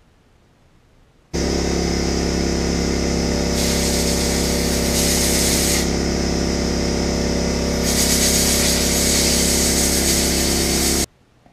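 Handheld power tool running at a steady speed for about ten seconds, starting and stopping abruptly, with its hiss changing a few times as it works.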